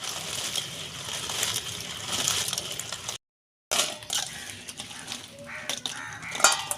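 Dried jujubes being washed by hand in water: sloshing water with the fruit clicking and rattling against each other and the bowl. The sound drops out completely for about half a second a little after halfway.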